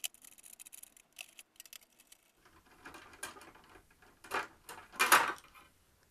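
Screwdriver working small screws out of a projection TV optical assembly's metal chassis, with a run of light ticks and clicks, then two louder scraping knocks as the metal parts are handled about four and five seconds in.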